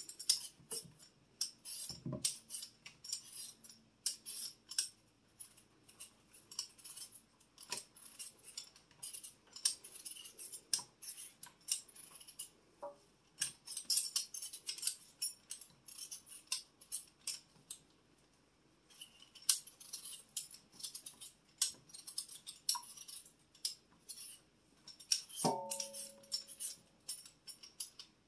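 Hand-held vegetable peeler scraping the skin off a raw potato in quick, irregular strokes, with a short pause past the middle. A brief knock with a short ring comes near the end.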